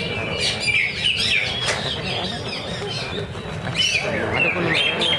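Cucak ijo (greater green leafbird) singing a fast run of varied chirps and short whistled phrases.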